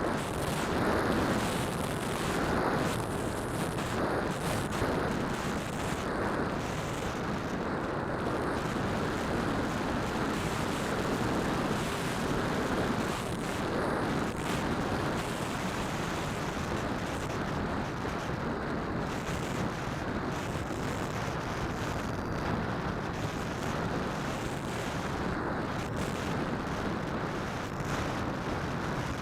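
Steady rushing noise from a DJI Phantom quadcopter in flight, with propeller noise and wind buffeting mixed together on its onboard keychain camera's microphone.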